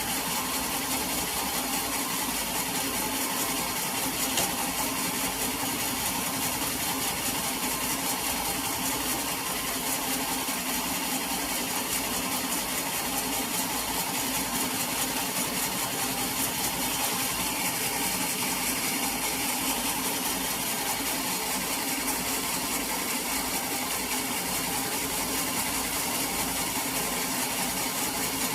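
Sawmill machinery running steadily at an even level, a continuous mechanical drone without breaks.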